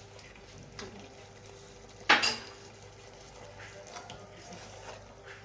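Spoon stirring porridge in a cooking pot, with faint scrapes and knocks and one sharp metallic clank against the pot about two seconds in.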